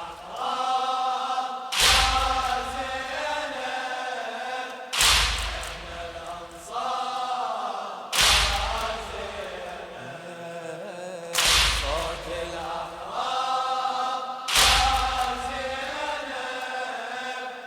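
Congregation beating their chests in unison (latm), one loud slap about every three seconds, with the mourners chanting the refrain together between the strikes.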